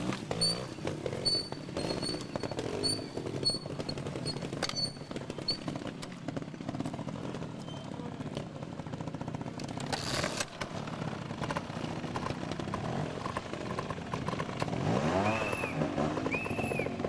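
Two-stroke GasGas trials motorcycle engine running and being blipped on the throttle, the pitch rising and falling repeatedly, with two sharper rev rises and drops near the end.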